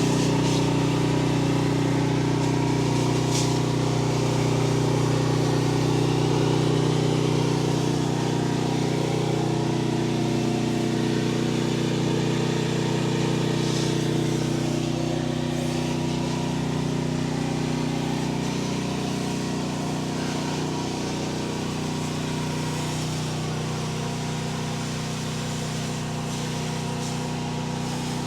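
Engine-driven pump of a soft-wash spray rig running steadily with a low, even drone, easing slightly in level toward the end.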